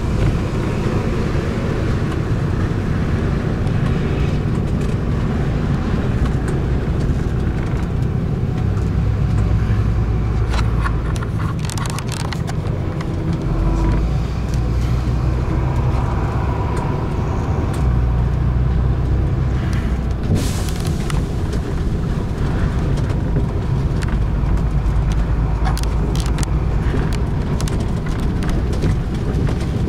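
Open-top tour bus driving along a road: a steady low engine drone that shifts a few times as the bus changes speed, with a few short knocks along the way.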